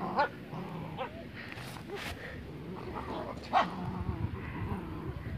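Husky-Lab-Corgi mix puppies playing, giving a few short high yelps, the loudest just after the start and about three and a half seconds in.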